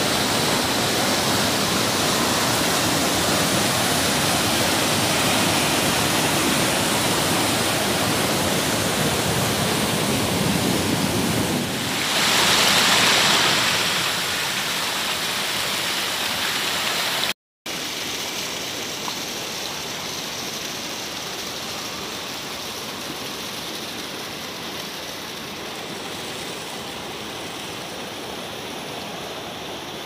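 Mountain stream rushing and splashing over boulders, a steady loud rush of white water. It swells briefly about halfway through, cuts out for a moment, then goes on a little quieter as water spills over a small rocky cascade.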